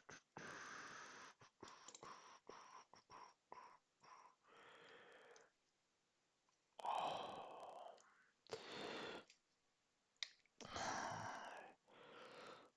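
Soft breathy sighs and exhalations close to the microphone, a few of them, with faint short clicks between them from small hand work on the phone.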